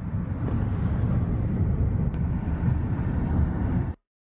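Low, steady rumble of a vehicle in motion, heard as road and traffic noise, cutting off suddenly near the end.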